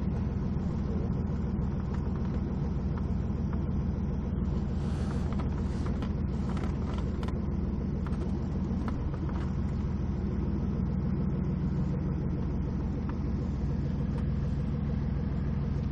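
Cessna light aircraft's piston engine and propeller running with a steady low drone, heard from inside the cabin.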